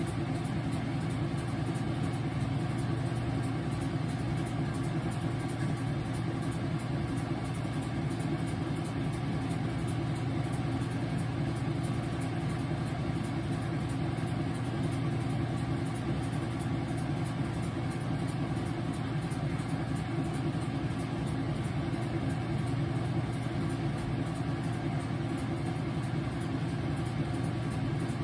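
Whirlpool top-load washing machine running with a steady, even hum through a wash cycle.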